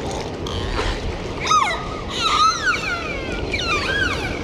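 Dolphins whistling: a run of rising-and-falling whistles through the middle and another near the end, over a steady low background noise.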